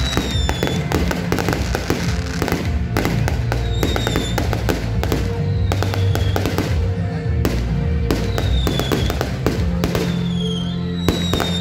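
Aerial fireworks bursting and crackling in rapid succession, with music playing underneath and short high whistles recurring every second or so.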